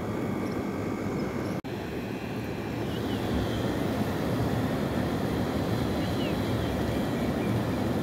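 Steady rush of turbulent river water pouring through a weir, broken by a momentary dropout about one and a half seconds in.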